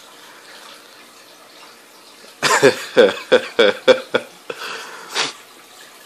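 A person's voice in a quick run of about six short bursts a little before halfway, then two more single bursts, over a low steady hiss.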